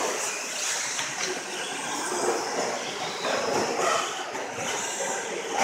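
Several radio-controlled stadium trucks racing on a dirt track: a steady hiss of motors whining and tyres scrabbling on the dirt, with faint rising and falling whines as the trucks speed up and slow, and a couple of short knocks.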